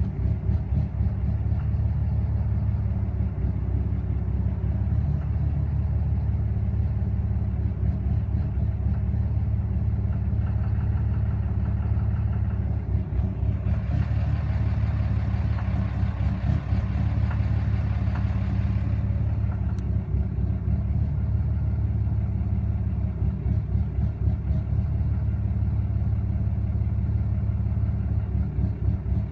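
Emissions-deleted 2013 6.7 L Cummins inline-six turbo-diesel idling rough and unevenly, with the knocking its owner is trying to trace. A few seconds before halfway, a hissing sound joins in for about five seconds.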